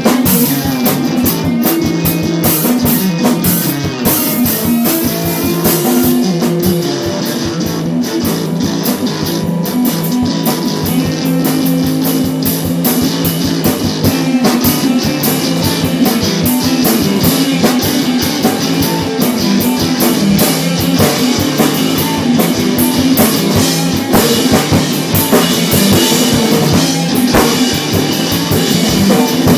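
A rock band playing a funky 1960s-style number, with guitar over a drum kit.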